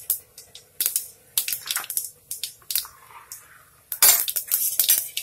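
Mustard and cumin seeds crackling and popping in hot oil in a steel pot, the tempering (tadka) stage. Irregular sharp pops throughout, thickest about four seconds in.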